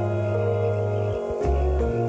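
Soft ambient background music of long held notes over a deep bass line; the bass changes note a little past halfway through and again near the end.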